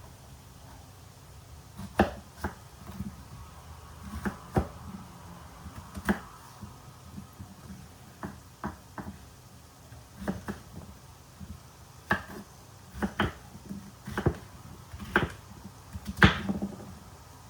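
Irregular light knocks and clicks of hands at kitchen work, roughly one a second, with a faint low hum underneath; the sharpest knocks come about two seconds in and near the end.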